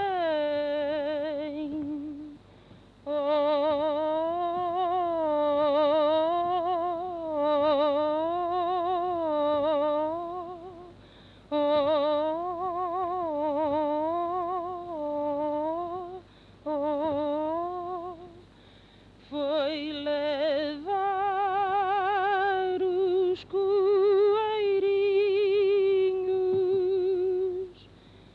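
A woman singing a Portuguese lullaby unaccompanied, in wordless or hummed phrases with a wide vibrato, broken by short breaths and ending on a long held note. The old field recording sounds thin, with no high treble.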